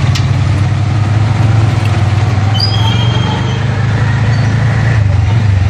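Steady low engine drone of a vehicle creeping through street traffic, heard from inside the cabin. A couple of faint, brief high tones sound about three seconds in.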